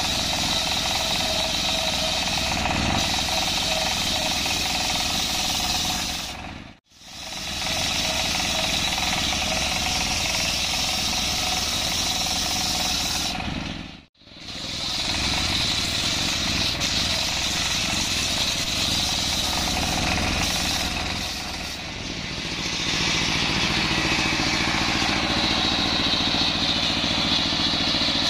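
Diesel engine driving a circular saw blade ripping lengthwise through a coconut log: a loud, steady mix of engine running and blade noise in the wood. The sound drops out briefly twice. Near the end the engine's low hum comes through more clearly.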